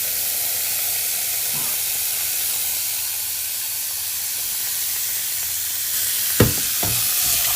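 Waterfall rushing: a steady, hissing roar of falling water. Two brief low thumps near the end.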